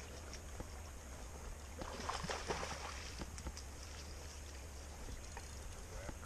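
Riverbank ambience: a steady low rumble under faint running-water noise, with a short burst of splashy noise about two seconds in.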